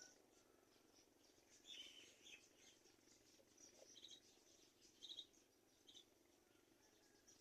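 Faint, short high bird chirps, a few scattered over several seconds, over a soft steady hiss.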